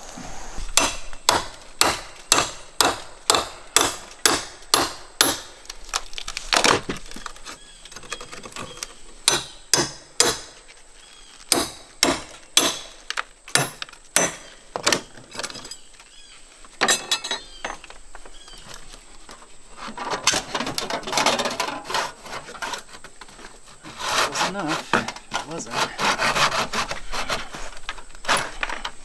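Hammer blows on wood, about two a second at first and then more scattered; from about twenty seconds in, a hand saw cutting through a wooden board in two runs of quick strokes.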